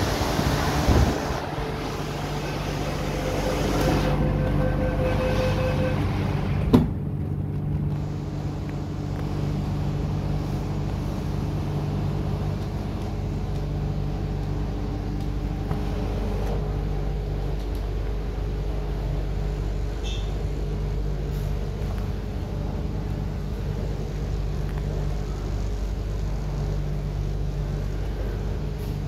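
MTR Kwun Tong Line Q-Train at a platform: the door-closing warning tone sounds for a few seconds and the doors shut with a thud about seven seconds in. After that the train's running noise, a steady hum with low droning tones, fills the rest.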